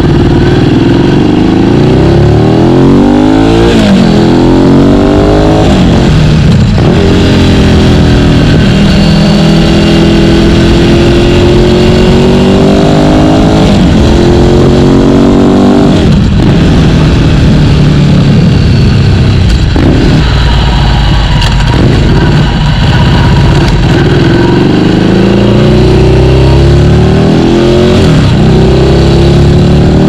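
Ducati Scrambler Desert Sled's air-cooled 803 cc L-twin through a full Termignoni exhaust, heard close to the muffler while riding. The engine pulls up through the revs again and again, its pitch rising in each gear and dropping sharply at each shift or throttle-off, over road and wind noise.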